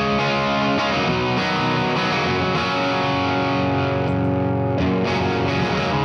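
Electric guitar on its bridge pickup, played through an overdrive pedal into a Satellite Neutron tube amp running a 12AT7 in the phase inverter slot: distorted chords and riffs.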